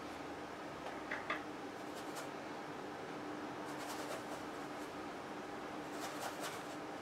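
Oil-paint brush scrubbing and dabbing on canvas in a few short bursts of soft scratchy strokes, over a steady low room hum.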